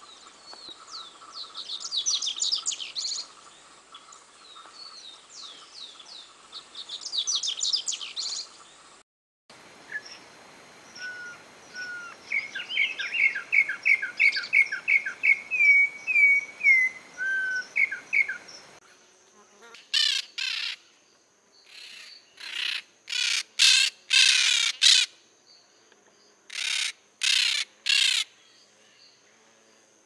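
Double-collared seedeater (coleiro) singing two fast, high trilled phrases. It cuts to a troupial (corrupião) whistling a series of clear notes, about three a second, and then, about two-thirds of the way in, to loud, harsh bird calls in short bursts.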